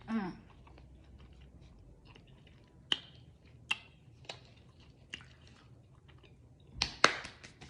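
A person chewing a chewy mango chili candy belt up close, heard as scattered sharp mouth clicks and smacks, with the loudest smacks near the end followed by a quick run of small ones. A short falling hum comes at the very start.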